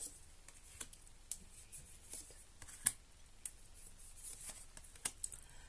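Tarot cards being handled and drawn from the deck: scattered light clicks and snaps of card edges at uneven intervals.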